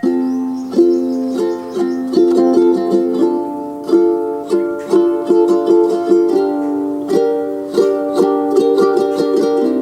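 Background music: a melody of plucked string notes, several a second, each note sounding and fading.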